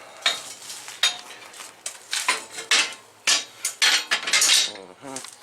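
Metal parts clinking and knocking against each other at irregular intervals as they are handled and set in place, with a short scrape about four seconds in.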